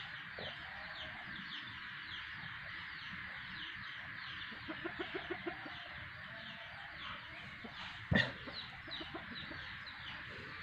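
Chickens in the yard: a steady run of high, falling peeps, several a second, with a short run of about five clucks around the middle. A single sharp knock about eight seconds in.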